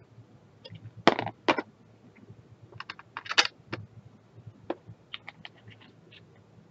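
Hard plastic clicks and knocks from a plastic drill tray and small bead containers being handled on a clear plastic storage box: two loud knocks about a second in, a cluster of clicks around three seconds, then lighter scattered ticks.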